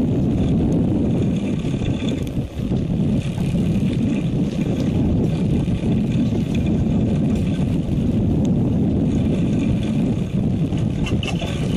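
A fishing boat's engine running steadily, a continuous low rumble.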